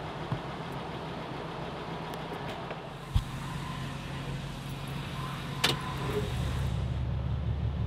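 Powered leveling jacks on a Grand Design Momentum fifth-wheel toy hauler running as they retract, a steady motor hum with a couple of sharp clicks. The hum grows louder about six seconds in.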